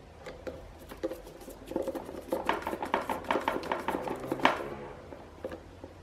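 Phillips screwdriver driving a small screw through the metal mounting tab of a fan motor's run capacitor: a run of small metallic clicks and scrapes, busiest from about two to four and a half seconds in.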